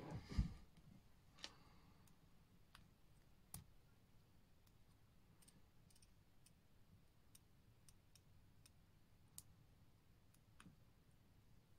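Near silence with a soft knock just after the start, then about a dozen faint, irregularly spaced small clicks of tweezers and tiny parts being handled on a quartz watch movement during reassembly.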